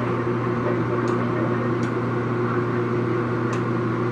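Longem LG26120C heavy-duty gap bed lathe running with its spindle turning at about 56 RPM: a steady motor and gearbox hum, with three faint ticks.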